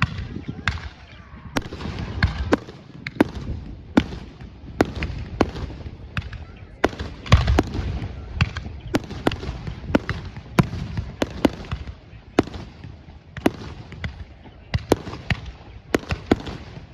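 Fireworks bursting: an irregular rapid series of sharp cracks and bangs, about one or two a second, over a low rumble.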